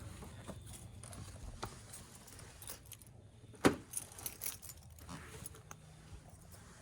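Small metal items jingling and clinking, carried along on foot, with one sharp knock a little past halfway.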